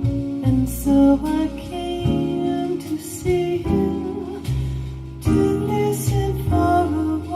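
Recorded pop music played back through Klipsch KG4 loudspeakers: a mostly instrumental passage with a bass line, guitar and drum hits.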